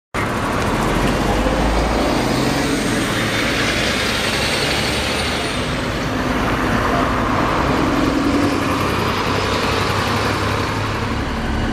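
Volvo B7TL double-decker bus under way, its six-cylinder diesel engine and road noise running steadily, with a faint high-pitched squeal that slides down in pitch about halfway through.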